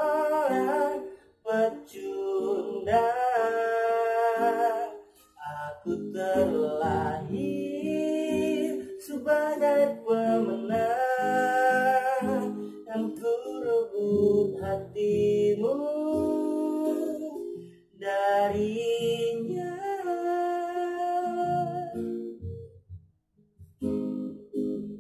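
A man singing a pop ballad over acoustic guitar, in phrases separated by short breaths. About 22 seconds in the voice stops and the guitar carries on alone.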